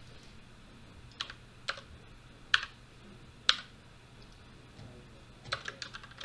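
Computer keyboard keystrokes: four single key presses spaced about half a second to a second apart, then a quick run of typing near the end.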